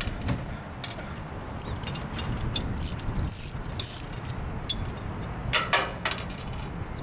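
Hand tools and metal fittings clicking and clinking on the pump end of a Godwin Dri-Prime pump as the injector housing is taken off, over a steady low rumble. A cluster of sharper high clinks comes about halfway through.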